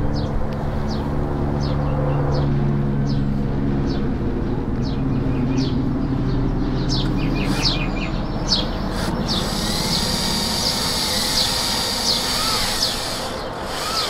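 Cordless drill-driver running, with a steady motor hum that shifts in pitch as the load changes, driving the screw of a stainless hose clamp to tighten it onto a hose stub.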